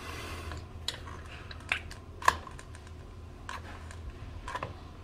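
A hot-melt glue gun being worked and handled: a handful of scattered clicks and taps, the sharpest about two seconds in.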